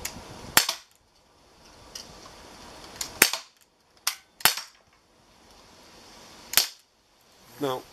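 Air pistol firing five sharp, unevenly spaced shots, two of them in quick succession about halfway through, with fainter clicks between them.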